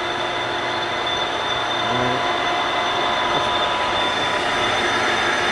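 Nardini Mascote MS-1440E gap-bed engine lathe running with its spindle at top speed, 2000 RPM, on the high setting of its two-speed motor: a steady whine and hum from the headstock gearing and motor.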